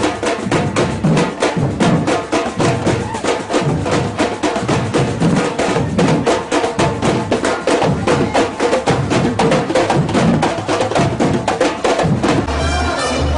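Afro-Brazilian percussion ensemble playing a fast, steady drum rhythm, the dense strikes carrying sharp wood-block-like clicks over low drums. Near the end the drumming stops and other music with a low, pulsing bass takes over.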